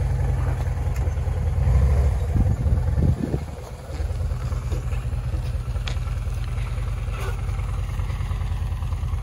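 Honda Shadow motorcycle's V-twin engine idling, running on its recharged battery; it is briefly louder about two seconds in and dips for a moment near three and a half seconds.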